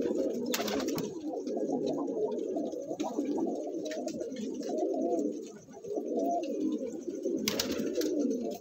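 A flock of domestic pigeons cooing continuously, many overlapping coos, with a couple of short noisy bursts about half a second in and near the end.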